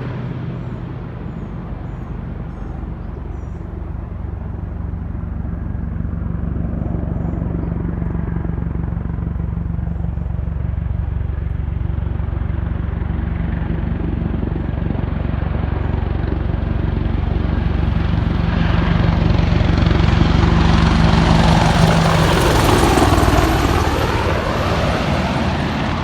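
Boeing AH-64 Apache helicopters flying by: a steady low rotor and engine drone that grows louder over about twenty seconds, peaks as they pass closest about 22 seconds in, then drops in pitch as they move away.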